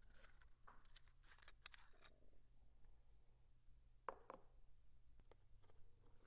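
Faint clicks and scratches of a single-edge razor blade being handled and slid from a clear plastic case. About four seconds in comes a short, louder scrape as the blade starts cutting at the thread wrap on a bamboo fly rod's snake guide.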